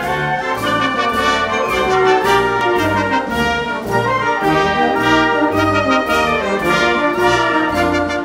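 Wind band playing a brilliant-style march, with brass carrying the tune over a bass line that steps on each beat at about two beats a second.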